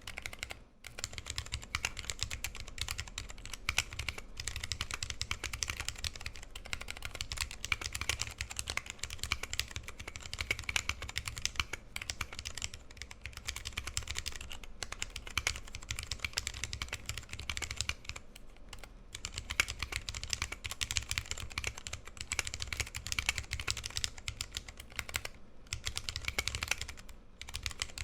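Steady typing on a 60% mechanical keyboard with lubed vintage brown Alps switches and PBT keycaps: a fast, continuous run of key clicks with a few brief pauses.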